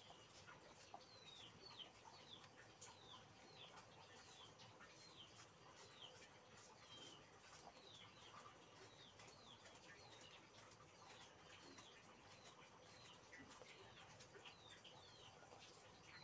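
Faint bird chirping: a small bird repeats a short, high, falling chirp about once a second.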